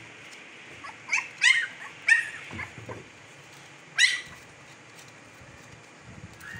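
Siberian husky puppies yipping as they play-fight. There is a quick run of short, high yelps between about one and three seconds in, then one more about four seconds in.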